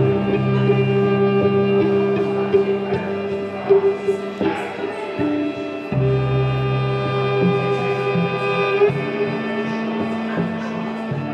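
Background music of long held notes, the chord changing about six seconds in and again near nine seconds.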